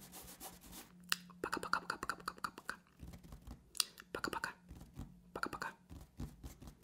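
Fingertips tapping and scratching on a table surface close to the microphone, in several short rapid flurries, over a faint steady hum.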